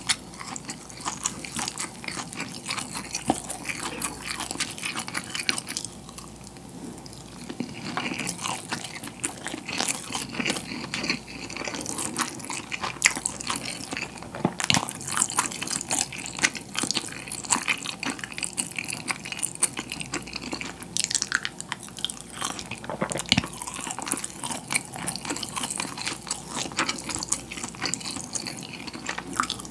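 Close-miked chewing and wet mouth sounds of someone eating rice and pollock roe (myeongnan), with many short sharp clicks and smacks throughout.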